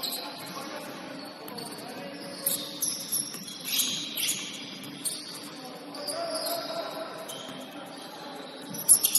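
Basketball shoes squeaking on a hardwood gym floor in short, high squeals, with a few sharp thuds of the ball and a low murmur of voices in the hall. A louder sharp hit comes near the end.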